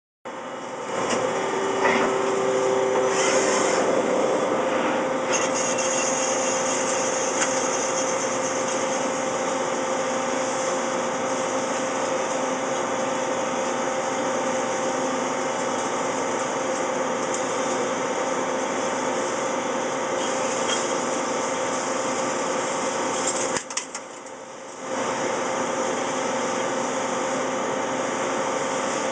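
Hwacheon Hi-Tech 200A CNC lathe running and cutting metal: the noise rises about a second in as the spindle gets going, then holds steady with a constant hum under the machining noise. It drops briefly about three-quarters of the way through, then resumes.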